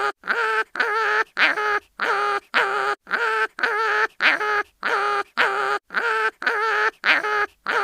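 Cartoon animal crying-in-pain sound effect: a rapid string of short pitched cries, about three a second, repeating evenly.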